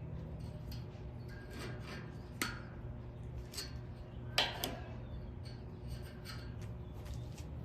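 Scattered light metallic clicks and taps of steel welding wire and hand tools being worked around a steel bar in a vise, with two sharper clicks a couple of seconds apart, over a steady low hum.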